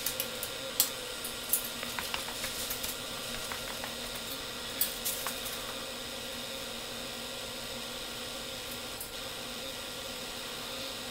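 Light metallic clicks and clinks of a roller chain being handled at the Maslow's left motor, scattered over the first five seconds or so, over a steady background hum.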